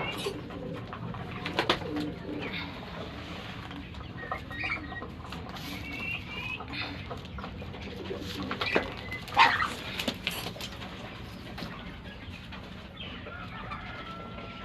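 Penned birds calling: soft low calls and short high chirps, with scattered sharp knocks and a louder knock about nine and a half seconds in.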